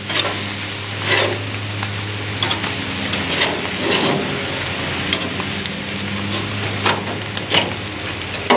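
Ribeye steaks and pork loin chops sizzling steadily on a hot gas grill, with about seven sharp clacks and scrapes of tongs and a spatula on the grill grates as the meat is lifted and rotated for crosshatch char marks.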